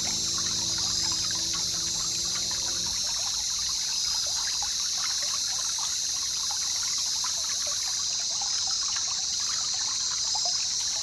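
River water trickling and splashing against the hull of a small boat, a steady run of small splashes over a constant high hiss. A low hum fades out about three seconds in.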